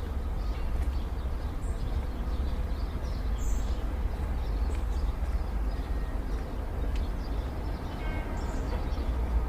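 Old-time city street ambience: a steady low rumble under an even wash of background noise, with a few faint short tones and light clicks scattered through it.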